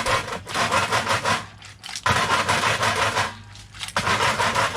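Frying pan being shaken back and forth over a burner, the metal pan scraping and rattling, in repeated bursts of a second or so with short pauses between.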